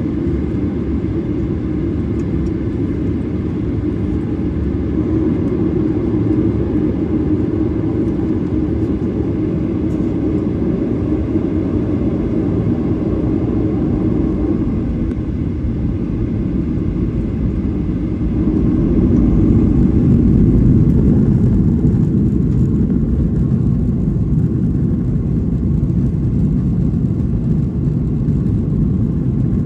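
Cabin noise of a Boeing 737-800's CFM56-7B turbofan engines at low taxi power, a steady low rumble heard through the fuselage. It swells briefly about twenty seconds in as thrust is added.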